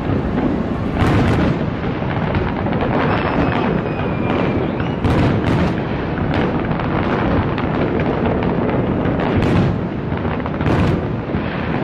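Large fireworks display: a dense, continuous rumble of explosions, with sharper cracking bangs standing out about a second in, a few times around five seconds in, and twice near the end.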